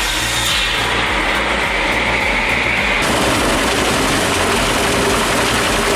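Heavy wood chipper running under load: a steady engine drone mixed with the crackle and grinding of wood being shredded. About three seconds in the sound changes abruptly and becomes harsher and hissier.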